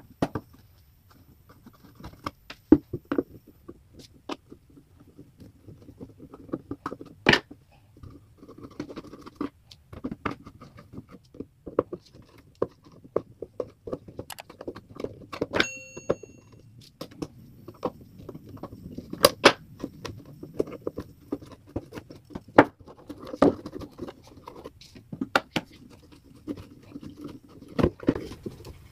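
Metal knife and flat tool prying and scraping at the back panel of a wooden speaker cabinet whose screws are stripped: irregular clicks, knocks and scrapes as the panel is worked loose. One brief ringing note sounds about halfway through.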